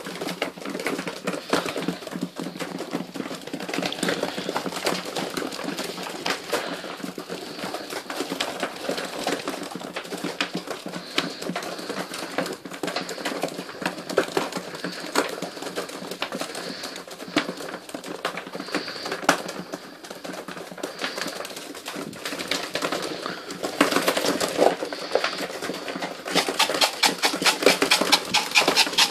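Domestic pigeons crowding to feed from a hand: a rapid, steady clatter of beaks pecking food, with pigeons cooing. The pecking grows louder and denser near the end.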